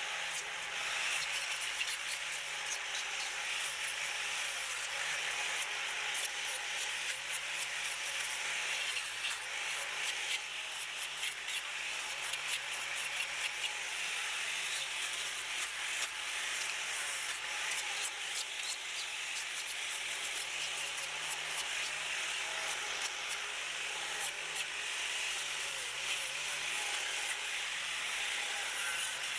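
Handheld electric grinder with a sanding disc abrading carved pine: a steady, gritty hiss of abrasive on wood over a low motor hum that wavers slightly as the tool is pressed in.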